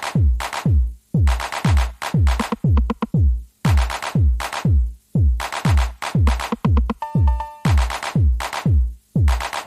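Electronic background music with a steady drum-machine beat of deep kicks, about two a second, that cuts off suddenly at the end.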